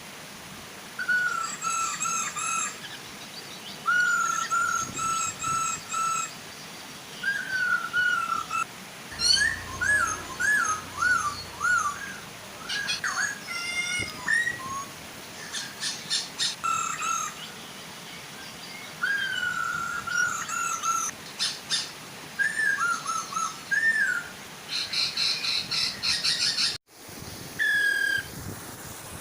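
Hong Kong poksay laughingthrushes calling: repeated series of clear whistled notes, some swooping up and down, over the soft steady rush of a waterfall. The sound drops out for an instant near the end.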